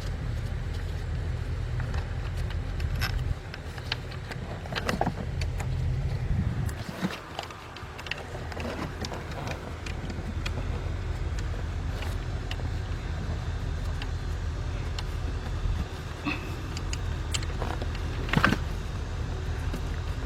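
Scattered light clicks and clinks of a bolt and metal parts being handled by hand in an engine bay, over a steady low rumble. One sharper click comes near the end.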